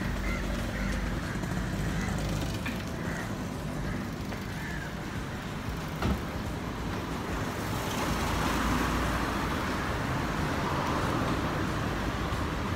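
Road traffic: a steady low rumble of engines, with the hiss of a vehicle going past growing louder about two-thirds of the way through. A single sharp click about halfway.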